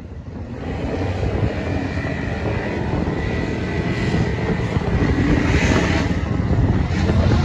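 Drag-racing cars at full throttle running down the strip, a loud, dense engine noise that grows steadily louder over several seconds.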